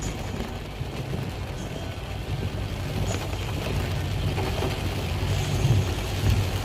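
A motor vehicle's engine running steadily with a low hum, under a haze of background noise.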